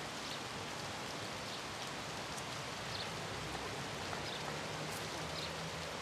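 Steady, even background hiss with a faint low hum under it.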